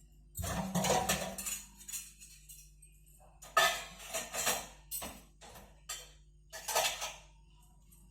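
Dishes and metal cutlery clattering in three bursts of knocks and clinks as they are handled.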